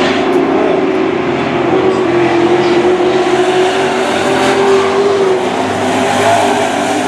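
Dirt-track super trucks racing at speed, their engines running loud and steady. The engine note climbs a little partway through and eases off near the end.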